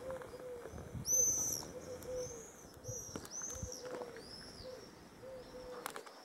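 Birds calling: a songbird's clear, high whistled notes repeated several times, loudest about a second in, over the low, steady cooing of a dove.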